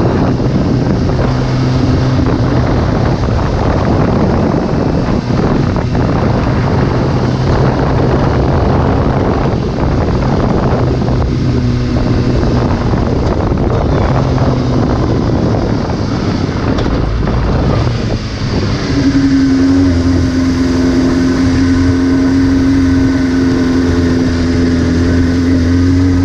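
Sport motorcycle riding at road speed, with heavy wind noise on the microphone over the engine. About three-quarters of the way through, the wind drops away as the bike slows, leaving the engine's steady low-speed note.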